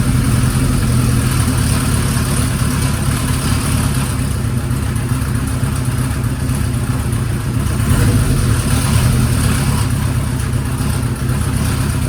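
Kawasaki Z1's air-cooled inline-four engine running steadily with a loud abnormal mechanical noise from the engine, briefly a little louder about eight seconds in.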